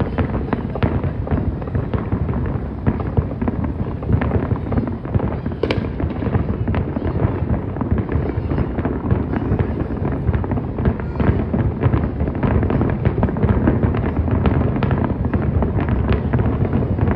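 Many fireworks going off at once: a dense, unbroken rattle of overlapping bangs and crackles with no pauses.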